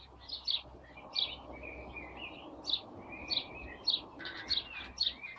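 Small songbirds chirping: repeated short high chirps, roughly two a second, with a lower warbling phrase about two seconds in and again near the end.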